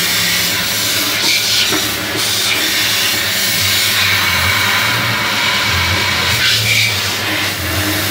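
Water jet from a hose nozzle spraying into a motorcycle fuel tank through its filler opening, a loud steady rushing hiss. A low steady hum joins it about four seconds in.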